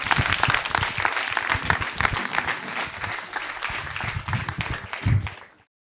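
Audience applauding: dense, steady clapping that thins out and cuts off abruptly near the end.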